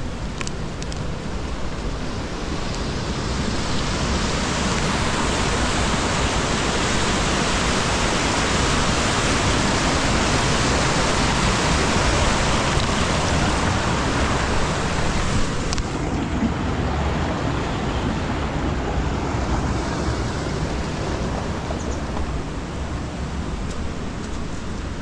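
Rushing water of a waterfall: a steady noise that builds over the first few seconds and drops noticeably about fifteen seconds in.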